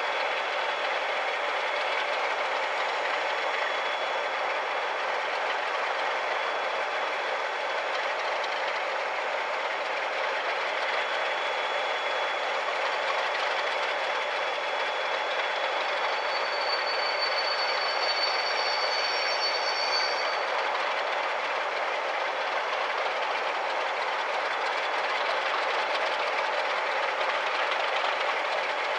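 Class 37-hauled passenger train, driving brake trailer leading, approaching along the line: a steady rolling rumble of wheels on rails. About two-thirds of the way through there is a brief high-pitched squeal.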